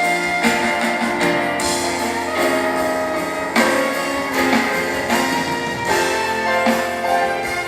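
Live band playing a song together during a sound check, with guitar among the instruments; the musicians are rehearsing and checking notes and chords.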